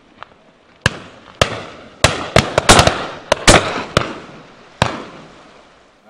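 A volley of about a dozen shotgun shots from several guns firing at driven birds. The shots come singly at first, then crowd together over about a second and a half in the middle, then thin out to a last shot near the end. Each bang trails off in an echo.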